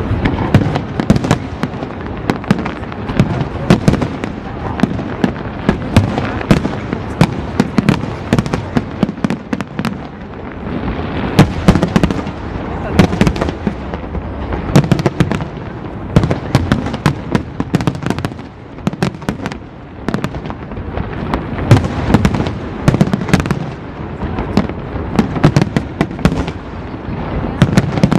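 Aerial fireworks display: a rapid, continuous barrage of sharp bangs from bursting shells, several a second, over a low rumble, easing briefly about ten seconds in and again near twenty seconds.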